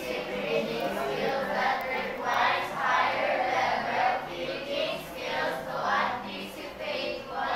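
A group of schoolgirls reading a definition aloud together in unison, many voices speaking as one chorus.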